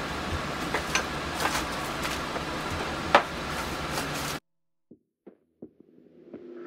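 Dishes and kitchen items clinking and knocking as they are picked up off a counter, over a steady background hum. The sound cuts off abruptly about two-thirds of the way through, leaving near silence with a few faint taps.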